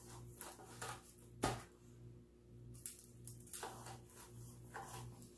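Faint rustling and light taps of a hand rubbing seasoning into raw beef in a disposable aluminium foil pan, with one sharper tap about one and a half seconds in. A faint low hum runs underneath.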